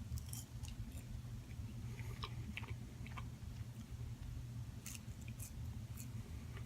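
A person chewing garlic and herb french fries close to the microphone: faint, scattered wet mouth clicks over a low steady hum.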